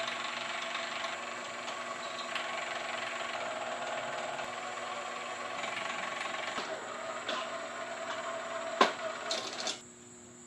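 Small electric motor of a disc changer running, driving the disc platter round with a steady whir. It stops about a second before the end, with a sharp click shortly before.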